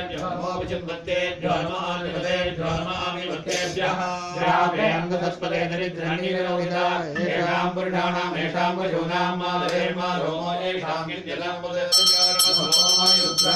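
Male voices chanting mantras together over a steady low note, the ritual chant of a temple abhishekam. Near the end a hand bell starts ringing in rapid strokes.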